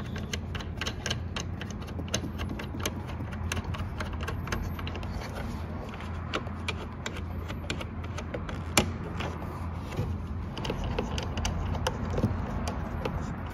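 Small metallic clicks and rattles of the side mirror's mounting nuts being spun off their threaded studs by hand, with one sharper click about nine seconds in, over a steady low hum.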